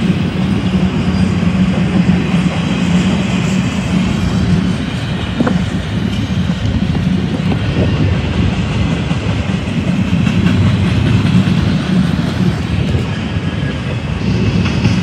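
Empty double-stack well cars of a freight train rolling past close by: a steady, loud rumble of steel wheels on the rail.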